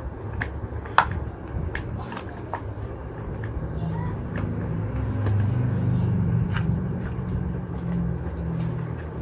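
Scattered sharp plastic clicks and light knocks as the gaming chair's black plastic side fittings at the seat mechanism are handled and fitted, the loudest click about a second in. Under them a low rumble swells from around the middle and holds to near the end.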